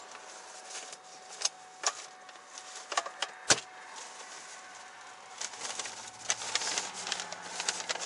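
Handling noises inside a car during a search: scattered clicks, knocks and light rattles as things are moved about, with one sharp knock about three and a half seconds in and a quicker run of small clicks and rattles near the end.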